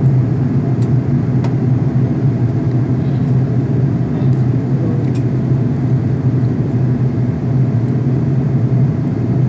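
Steady airliner cabin noise heard from a window seat over the wing: the constant drone of the jet engines and airflow, with a strong low hum.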